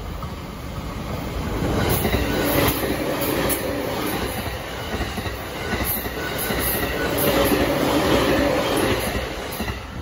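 Electric commuter train (electric multiple unit) passing at speed close by: wheels rumbling on the rails, with clicks over the rail joints. It grows loud about two seconds in and drops away just before the end.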